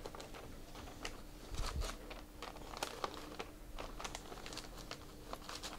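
Plastic vacuum-sealer bag crinkling faintly and irregularly as a cloth wipes and presses along its open end.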